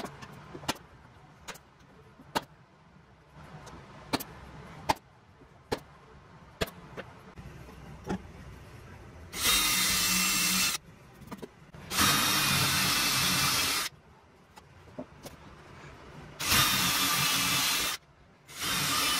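Power drill boring holes into weathered reclaimed wood: four runs of a second and a half to two seconds each in the second half, each starting and stopping abruptly. Before that, scattered light clicks and taps.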